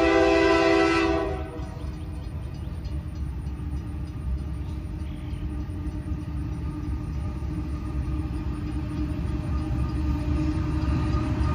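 Union Pacific diesel locomotive's horn blowing, cutting off about a second in, followed by the low rumble of the approaching locomotives, growing slowly louder.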